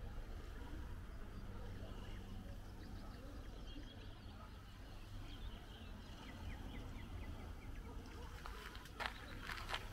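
Outdoor ambience: a steady low rumble with faint bird chirps, including a quick run of short chirps, and a few sharp clicks near the end.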